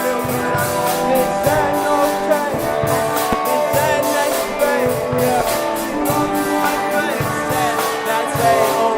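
Loud rock-style music: guitar and drums with a sung vocal line over a steady beat.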